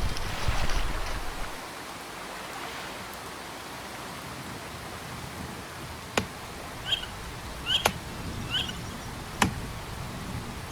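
Steady hiss of rain falling on a lagoon and woodland, a little louder at the start. In the second half a bird gives three short calls, and three sharp ticks come in between.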